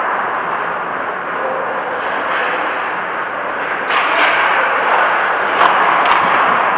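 Steady road and running noise of a moving vehicle, with a few sharp knocks in the second half.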